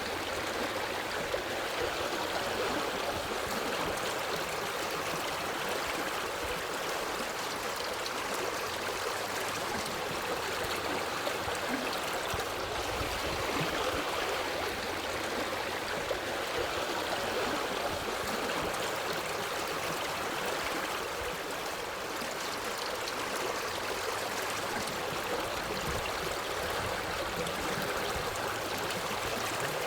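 A forest stream flowing with a steady, even rush of water.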